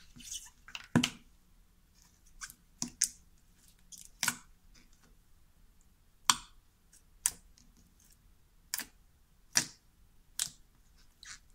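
Clicky white slime being pressed and folded by hand, giving off about a dozen separate sharp clicks and pops at irregular intervals.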